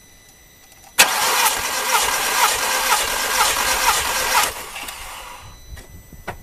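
Starter cranking a Volkswagen Golf Mk4's 2.0 L four-cylinder petrol engine without it starting, for a compression test on cylinder four. It runs for about three and a half seconds with a regular pulse about twice a second, then stops abruptly. The gauge climbs to 170 PSI, a healthy reading.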